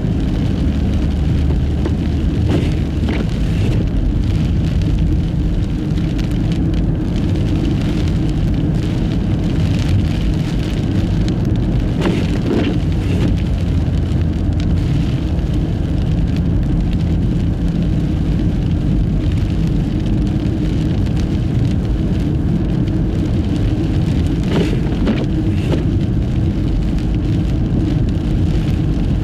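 Steady low rumble of a Nissan Fuga Hybrid (HY51) driving on a snow-covered road on studless tyres, with tyre and wind noise from the blizzard. A few faint brief knocks come through now and then.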